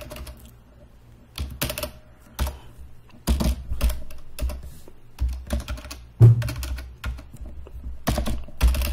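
Computer keyboard keystrokes clicking in irregular runs with short pauses between them, with one heavier thump about six seconds in.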